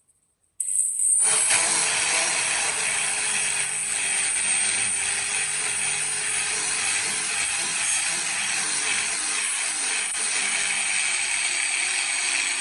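Electric abrasive tool, a grinder or polishing wheel, switching on about half a second in and running steadily with a high whine while it works the steel of the knife blade.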